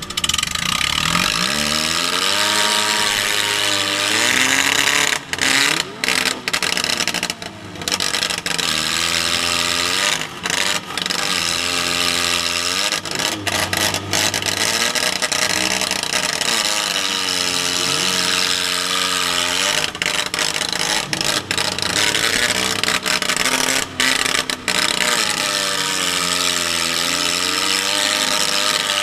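Demolition derby car's engine revving up and down again and again as the car is driven hard, heard from inside the stripped cabin over a loud, dense clattering noise. The sound dips out briefly several times.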